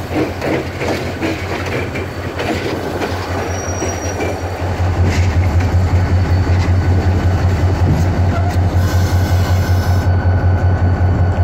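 Diesel-electric locomotive rolling slowly over points and rail joints, its wheels clacking in a rhythm. About five seconds in, the diesel engine's deep, pulsing throb grows louder and stays steady.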